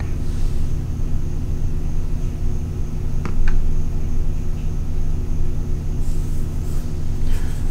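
Steady low droning hum, like a running motor or fan, with two faint clicks a little before the middle.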